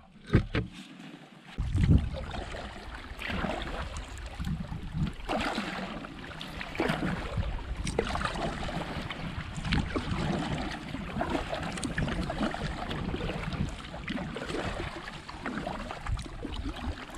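Kayak being paddled through shallow marsh water: irregular splashes and sloshing from paddle strokes and the hull, with wind on the microphone.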